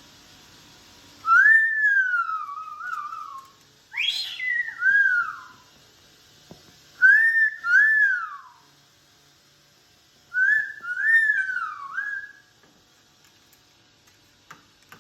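Whistling: four short phrases, each made of two or three sliding notes that rise and fall in pitch, with quiet pauses between them.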